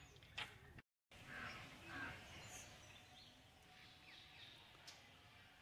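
Near silence: faint outdoor ambience with a few faint bird chirps, broken by a brief total dropout about a second in.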